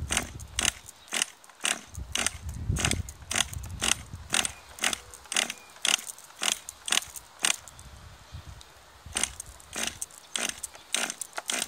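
Glow-plug nitro engine of a 1/10 RC car being cranked with its pull starter. Short, sharp pulls come about two a second with a break around eight seconds in, and the engine does not catch.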